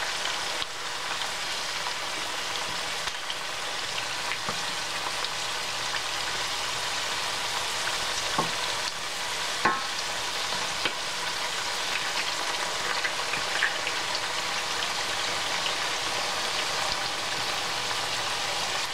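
Sweet potato wedges sizzling steadily in very hot oil in a stainless steel pan, with a few short clicks and scrapes as a fork and wooden spatula turn the pieces.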